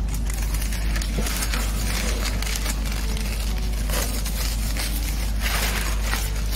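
Masking paper and tape being pulled off a car's plastic rear bumper: irregular crinkling and rustling of the paper and tape, over a steady low rumble.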